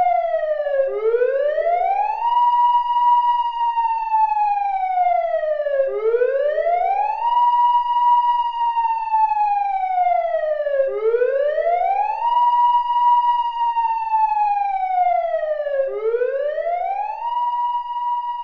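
Emergency-vehicle siren on a slow wail: each cycle rises quickly in pitch, holds briefly at the top, then slides slowly down, repeating about every five seconds.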